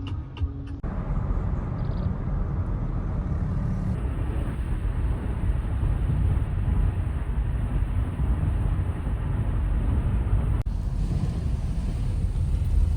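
Steady low rumble of a moving vehicle, changing abruptly about 1, 4 and 10.5 seconds in.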